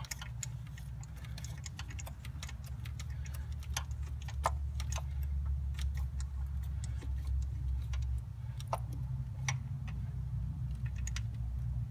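Scattered light clicks and ticks of a spark plug socket and extension being turned by hand, threading a spark plug with a thread-repair insert into a Ford 5.4 Triton's cylinder head, over a steady low hum.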